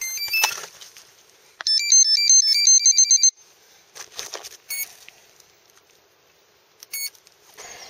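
Electronic beeps from a homebuilt octocopter's electronics as it powers up: a quick rising run of beeps, then a fast warbling sequence of tones for about a second and a half, then two single short beeps about two seconds apart.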